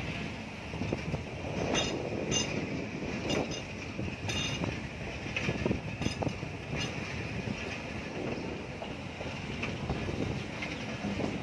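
Passenger train running along the track, heard from an open coach window: a steady rumble of wheels on rails and rushing air, with scattered sharp clicks from the running gear and track.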